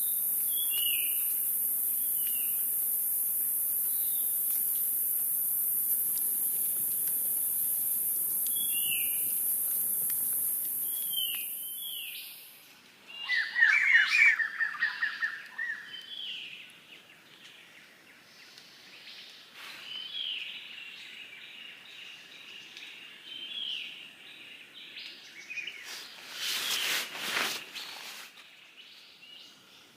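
Birds calling with short repeated chirps, and a louder rapid trill about halfway through. A steady high-pitched hiss under them stops suddenly a little before the trill, and a brief burst of noise comes near the end.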